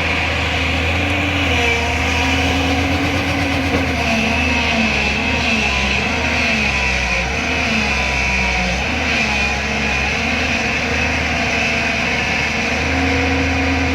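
JCB 205 LC excavator's diesel engine running steadily, its pitch repeatedly dipping and recovering under hydraulic load as the machine works, most often through the middle of the stretch.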